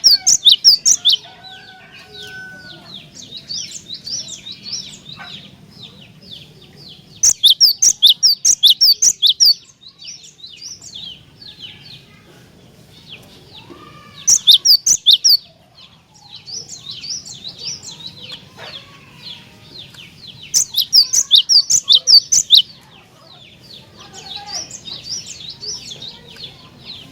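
Cinereous tit (glatik batu) singing: four loud bursts of rapid repeated high notes, each a second or two long, with quieter continuous chattering between them.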